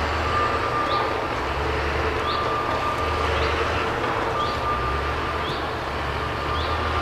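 Forestry harvester working: a steady engine drone that swells and eases, with a high whine that comes and goes every second or two.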